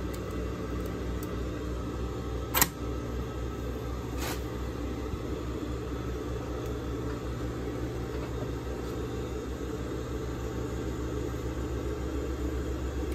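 Steady low hum, with a sharp click about two and a half seconds in and a fainter click a couple of seconds later: the bobbin case and the needle-plate slide of a Juki industrial sewing machine being snapped back into place.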